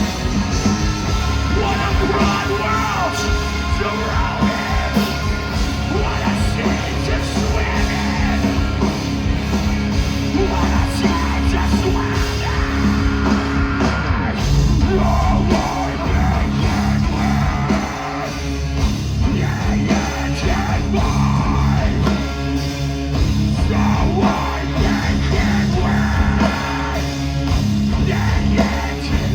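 Metalcore band playing live at full volume, heavy amplified music with yelled vocals.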